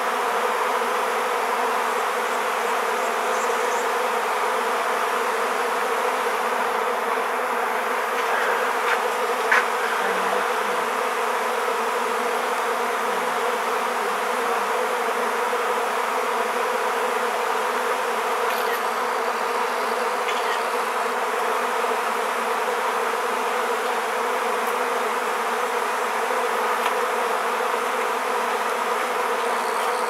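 A swarm of honeybees buzzing: a dense, steady hum of many bees flying around the cluster, the sound of a colony swarming out of its crowded hive with a new queen. A brief click about nine and a half seconds in.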